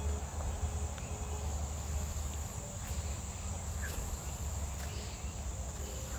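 A few faint clinks of small metal tools and parts being handled, over a steady low hum and a continuous high-pitched whine.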